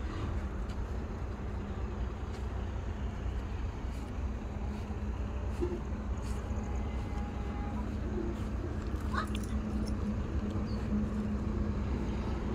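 A motor vehicle's engine running steadily: a low rumble with a constant hum that does not rise or fall.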